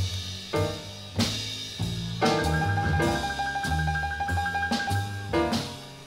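Jazz piano trio playing a Christmas record: piano, double bass and drums, with one high note held steady for about three seconds in the middle.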